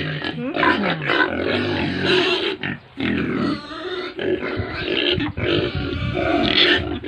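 A pen of young white pigs grunting together, continuous apart from a short break about three seconds in.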